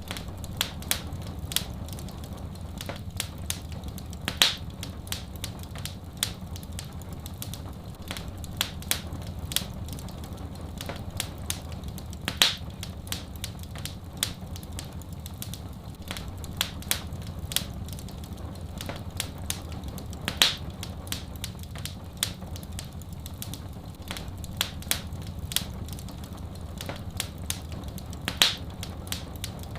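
Wood fire crackling with many irregular sharp pops over a steady low rumble and a faint hiss. A louder pop comes about every eight seconds.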